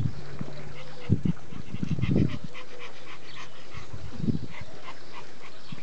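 Small dog whimpering and yipping in a quick run of short calls, with a few low thumps.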